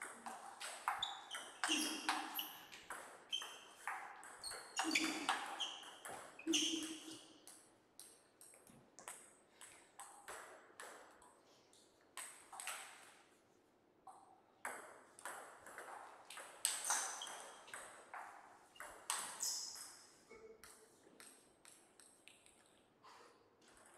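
Table tennis ball clicking rapidly off bats and table in a rally. After a lull the ball is bounced again in sparser clicks between points.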